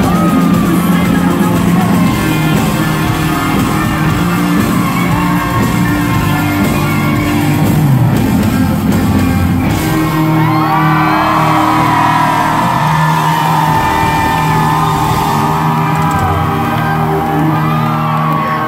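Live country-rock band playing loud in an arena, with an electric guitar lead and a singer over the band, and shouts from the crowd.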